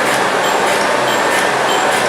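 Surface grinder's abrasive wheel grinding a metal workpiece, a steady loud grinding hiss over the hum of the machine. A faint regular tick recurs about twice a second.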